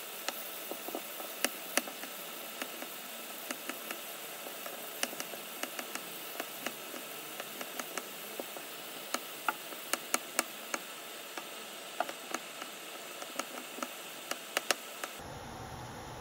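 Kitchen knife dicing peeled potatoes on a wooden cutting board: irregular sharp taps of the blade through the potato onto the board, two or three a second over a steady hiss. Near the end the taps stop and a low steady rumble of broth simmering in a pot takes over.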